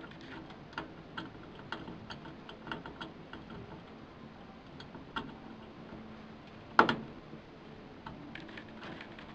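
Irregular small clicks and taps of computer hardware being handled, with one louder knock about seven seconds in.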